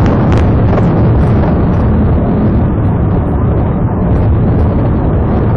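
Loud, steady rumble of a patrol car driving fast over a rough dirt road, with tyre, suspension and engine noise heard from inside the car, and a sharp knock or rattle less than half a second in.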